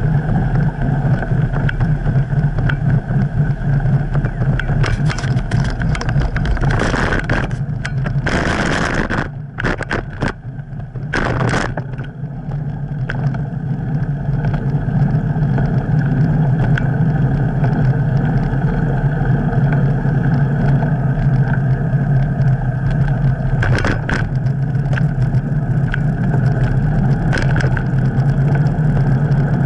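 Wind rushing over a handlebar-mounted camera's microphone, with the rumble of a bicycle being ridden over pavement. A cluster of rattling knocks comes between about five and twelve seconds in, and another near twenty-four seconds.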